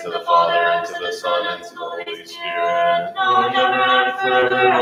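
Group of voices singing a cappella liturgical chant: sung phrases with long held notes, dipping briefly a little after halfway.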